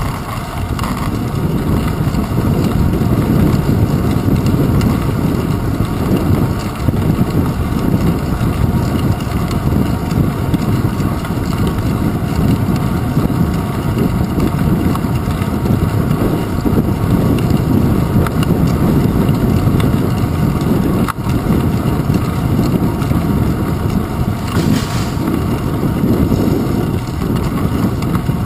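Wind buffeting the microphone of a handlebar-mounted GoPro Hero 2 and road rumble from a bicycle riding along a city street: a loud, steady low rushing noise.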